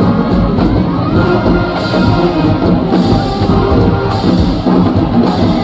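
Band music playing loudly with a steady beat, with cymbal-like crashes about every second and a bit, and a crowd faintly underneath.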